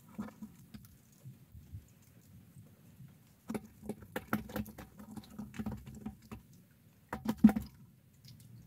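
Small waves lapping against the boat's hull in irregular clusters of light slaps and taps, the last cluster near the end the loudest.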